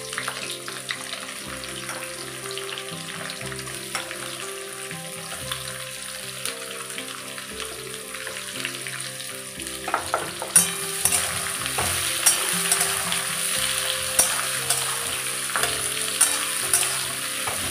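Sliced onions sizzling in hot oil and ghee in a large metal kadai. From about ten seconds in, a metal spatula stirs them, with repeated scrapes and clicks against the pan.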